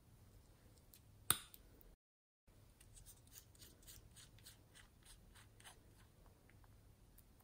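The cap of a small plastic lip balm tube pulled off with one sharp click about a second in, followed by a run of faint light ticks from handling the plastic tube.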